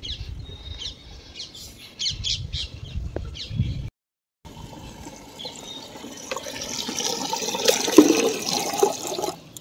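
Water from a tap pouring and splashing into a plastic bucket, building up over a few seconds from about halfway in. Before it, birds chirp over a low rumble.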